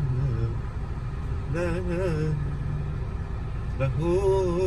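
Road and engine noise inside a moving car, a steady low rumble. A voice sings drawn-out, wavering phrases over it, once about a second and a half in and again near the end.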